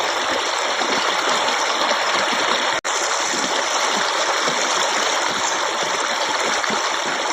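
Forest stream running water, a steady rushing and splashing that holds the same level throughout, with a split-second dropout to silence about three seconds in.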